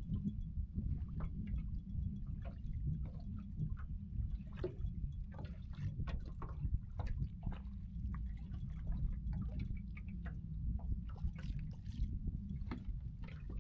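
Small waves lapping and splashing against the side of a small fishing boat, many short irregular splashes over a steady low rumble, with a few sharper splashes near the end.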